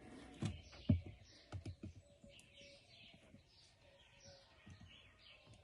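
A few light knocks and taps from handling small parts and tools on a work surface, the loudest about a second in, with birds chirping steadily in the background.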